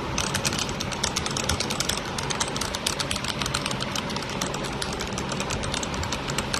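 Rapid typing on a Keycool KC84 mechanical keyboard with linear red switches: a dense, continuous clatter of key presses that starts just after the beginning, over a steady low hum.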